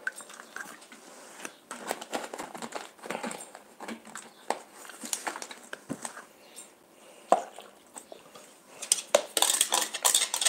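Kitchen utensil clinking and scraping against cookware while a dish of cream, milk, courgettes and ravioli is being mixed: scattered clicks and scrapes that thicken into a quick run of clatter near the end.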